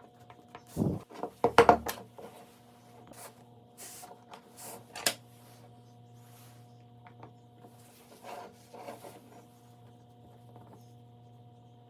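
Woodworking handling sounds: a cluster of sharp knocks about one and a half seconds in, then brief scraping and a sharp click about five seconds in, and softer rubbing later, over a steady low hum.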